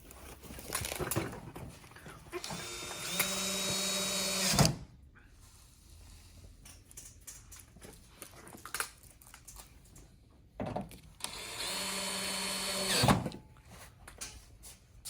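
Cordless electric screwdriver driving screws into a display's mounting bracket, in two runs of about two seconds each, about two seconds in and again near the end. Each run is a steady motor whine that stops with a sharp click. Small clicks and rattles of parts being handled come between the runs.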